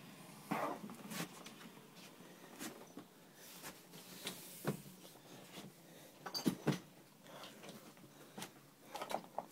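Irregular knocks and thumps from a person moving about inside a house with a handheld camera: footsteps and handling noise. There is a quick cluster of thumps about two-thirds of the way in and another near the end.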